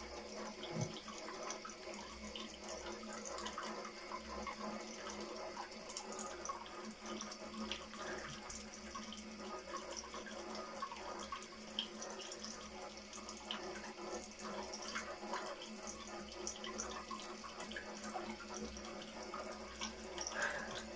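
Water running from a tap into a sink or bath: a steady hiss with many small splashes and drips.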